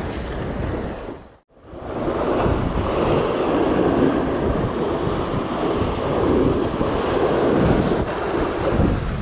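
Rough sea waves washing and breaking against a concrete seawall, with strong wind buffeting the microphone. The sound drops out briefly about a second and a half in, then runs on steadily.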